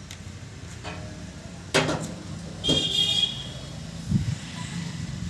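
Diesel engine running steadily under a sharp knock, with a vehicle horn tooting briefly about halfway through.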